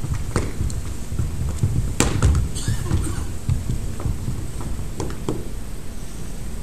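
Boots of marching cadets knocking on a wooden hall floor, a few separate steps with hall echo, the loudest about two seconds in, over a steady low rumble.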